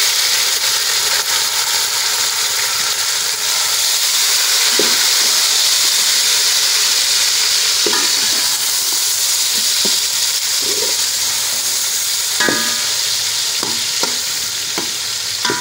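Chopped tomatoes and green chilies frying in hot ghee with fried onions, a loud steady sizzle. A steel ladle stirs them, clicking and scraping against the metal pot a few times.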